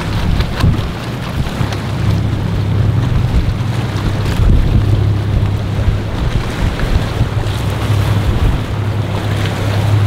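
Strong wind blowing across the microphone with a steady low rumble, over the sound of surf in a rough inlet.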